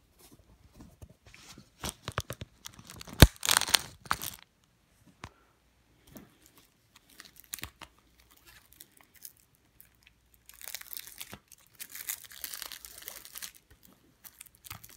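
Plastic shrink wrap being torn and crinkled off a Blu-ray case, with scattered small clicks of handling. A loud rip about three seconds in, then a long stretch of crinkling about ten seconds in.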